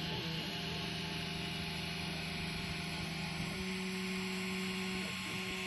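Prusa 3D printer's stepper motors humming steadily as it prints the first layer, over a steady hiss; the hum steps up slightly in pitch about three and a half seconds in as the print head changes moves.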